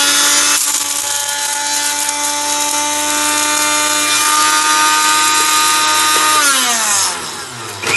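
Electric spice grinder running at full speed with a steady high whine, dry-grinding whole black peppercorns and black cardamom to powder. About six and a half seconds in the motor winds down, falling in pitch, then starts up again just before the end.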